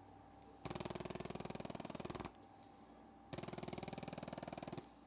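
Percussive massage gun buzzing in short bursts of rapid pulses, about a second and a half on and a second off, as it works tight muscles and trigger points.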